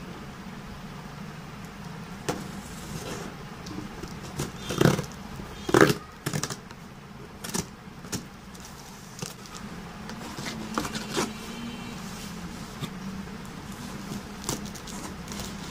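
A cardboard shipping box being handled with a kitchen knife: scattered taps, knocks and scrapes of cardboard, the loudest about five and six seconds in. A steady low hum runs underneath.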